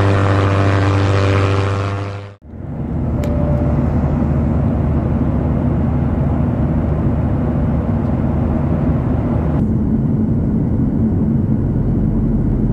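Airliner engine noise: a loud, steady drone with a low hum, then after a sudden cut about two and a half seconds in, a rougher, lower rumble.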